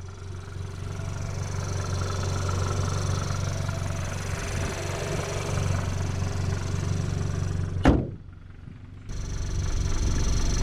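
Turbocharged 2.0-litre four-cylinder engine with a Stage 2 tune, heard from inside the engine bay while driving, growing louder over the first couple of seconds. About eight seconds in there is a single sharp, loud burst, followed by about a second of much quieter sound before the engine returns.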